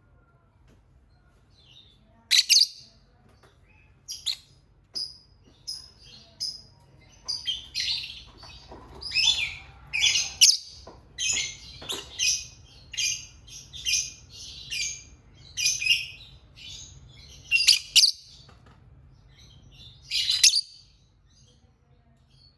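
Lovebird chirping in short, sharp, high-pitched calls: a few scattered chirps at first, then a rapid run of calls through the middle, tailing off to a couple of loud chirps near the end.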